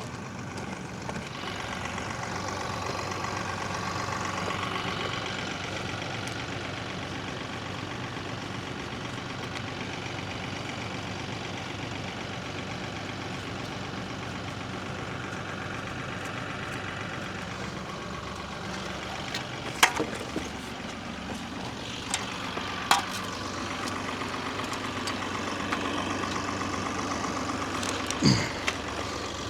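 Diesel engine of heavy earthmoving equipment running steadily, with a few sharp knocks about two-thirds of the way in and near the end.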